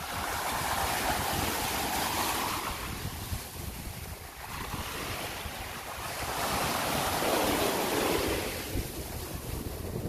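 Choppy sea surf breaking and washing up a sandy shore, swelling louder at the start and again around seven to eight seconds in, with wind buffeting the microphone.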